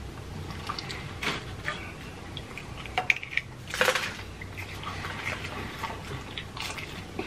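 Close-up eating sounds: crunchy bites and chewing, with scattered clicks and light clatter of utensils and containers on a metal tray. The sharpest crunches come about a second in and just before the four-second mark.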